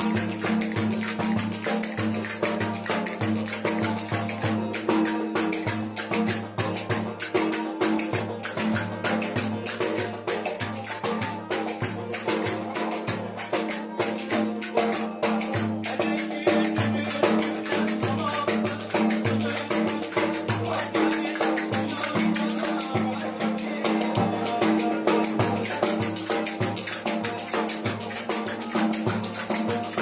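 Lively Turkish folk dance music playing loudly, with a steady fast beat and a busy melody over a held low tone.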